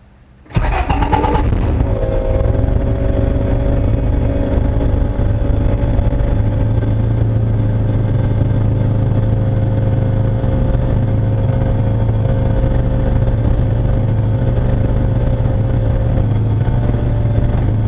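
Honda Del Sol's engine, freshly fitted with 2200cc fuel injectors and not yet tuned for them, starts about half a second in and settles into a steady idle.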